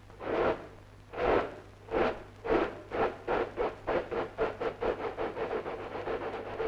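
Exhaust chuffs of a New Zealand Railways K-class steam locomotive pulling away. The puffs start about a second apart and quicken steadily to four or five a second as the engine gathers speed.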